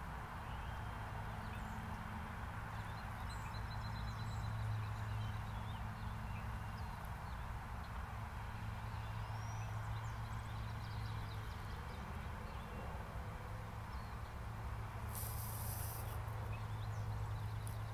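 Outdoor ambience: a steady low hum under a haze of noise, with faint, scattered bird chirps and a brief hiss about fifteen seconds in.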